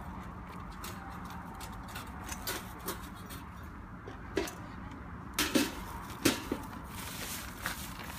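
Stainless-steel tabletop smoker being handled: light metal clinks and clanks as its wire rack and lid are set in place. A cluster of knocks comes from about four and a half to six and a half seconds in, the loudest near six seconds, over a steady low hum.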